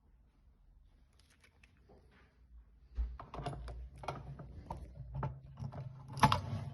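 Irregular light clicks and knocks over a low steady hum, getting busier and louder about three seconds in.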